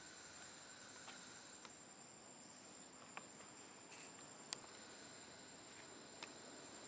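Faint steady high-pitched insect drone, with a few scattered sharp clicks; the loudest click comes about four and a half seconds in.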